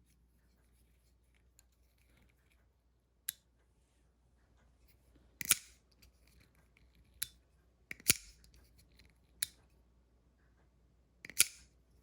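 Boker Kalashnikov automatic knives' spring-loaded blades snapping open and clicking shut: about six sharp, short metallic snaps at uneven intervals, the loudest about halfway through, about two thirds through and near the end.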